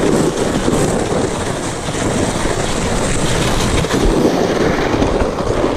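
Plastic sled sliding fast down snow: a loud, continuous rough scraping and rumbling of the sled's bottom over the lumpy snow, heard close up from on board the sled.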